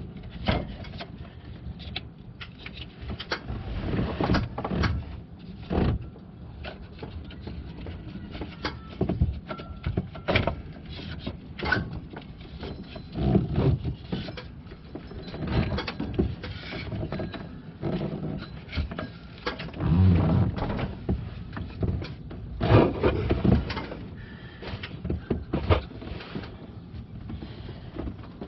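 A new rubber serpentine belt being fed by hand around the engine pulleys, engine off: irregular rubbing, scraping and short knocks of the belt and hands against pulleys and engine parts. A few short, low, voice-like sounds come through about midway and again later.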